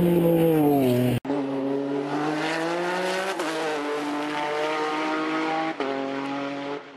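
Unlimited-class hill-climb race car engine at high revs. Its pitch drops during the first second, then the sound breaks off abruptly about a second in. It resumes as a steady engine note under hard acceleration, with gear changes about two and four and a half seconds later, and fades near the end.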